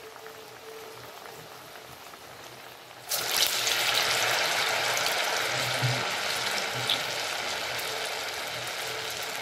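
Uzhunnu vada (urad dal fritters) deep-frying in hot sunflower oil, a steady sizzle that turns suddenly much louder about three seconds in, then slowly eases.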